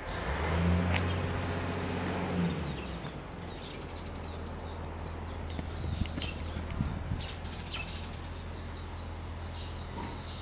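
Small birds chirping and twittering in quick short calls over a steady low outdoor hum. For the first three seconds a louder low engine drone with a stack of steady tones sits under it, and then fades.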